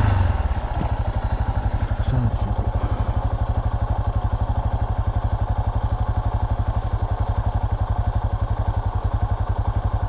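Yamaha Serow's single-cylinder engine idling steadily, a fast, even low thumping that holds the same pace throughout.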